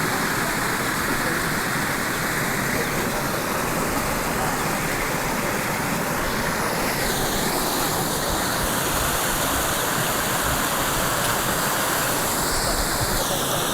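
Waterfall: a steady, loud rush of falling water, its tone shifting slightly about halfway through and again near the end.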